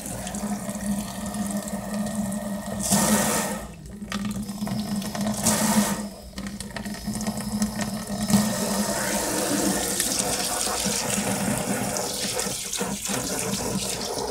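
Kitchen tap running at high flow into a stainless steel sink, the stream splashing on a plastic tray as it is rinsed. The splashing brightens and briefly dips twice, about four and six seconds in.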